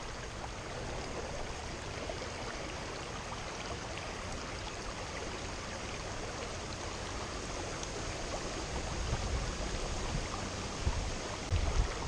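Shallow river water running over a rocky riffle: a steady babbling rush, with a few low bumps near the end.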